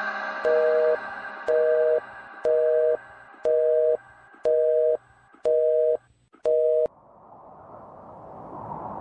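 Telephone busy signal: seven evenly spaced two-tone beeps, each about half a second long at about one a second, stopping about seven seconds in. It is the sign that the line is busy and the call is not going through. A faint, rising rush of noise follows near the end.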